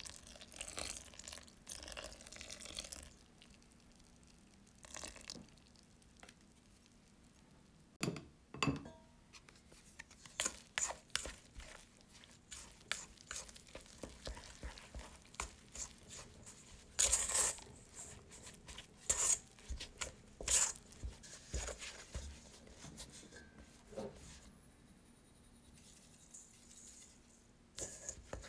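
A thin stream of liquid is poured onto flour in a stainless steel bowl. Then a silicone spatula and hands stir and squeeze the wet flour into a shaggy dough, in many short, irregular scrapes and sticky rubbing strokes against the bowl.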